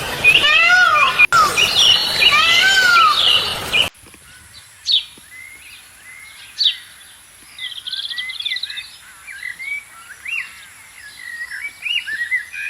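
Loud animal calls, each rising and falling in pitch and repeating about once a second, stop abruptly about four seconds in. Softer chirps and whistles from several birds follow.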